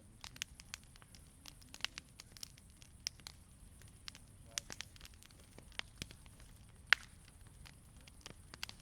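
Wood bonfire crackling over a low steady hiss, with irregular sharp pops from the burning wood. The loudest pop comes about seven seconds in.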